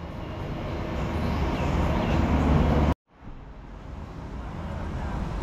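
Steady background rumble and hiss that swells in level, breaks off abruptly about three seconds in, then starts again quieter and swells once more.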